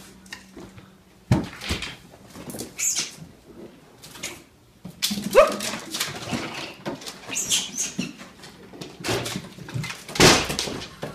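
A pet animal calling in short, irregular bursts mixed with knocks, with a brief rising cry about five seconds in and the loudest burst near the end.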